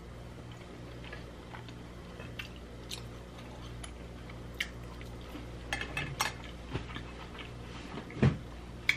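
Close-up eating sounds: a plastic fork clicking and scraping on the plate while picking up food, and wet chewing. Several sharper clicks come in the second half, over a low steady hum.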